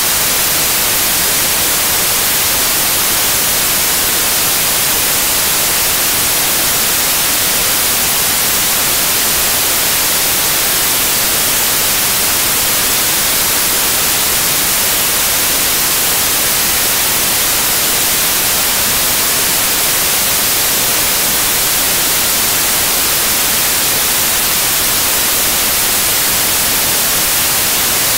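Steady, unchanging hiss of television static, the white noise of an untuned analogue TV showing snow.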